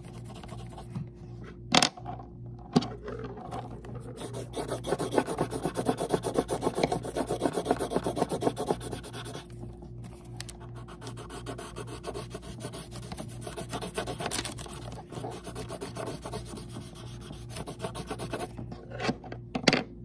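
Paintbrush rubbing over a paper piggy bank in quick back-and-forth strokes, heaviest in a long run between about four and nine seconds in. A couple of sharp knocks come about two seconds in, the first the loudest thing heard, and another near the end.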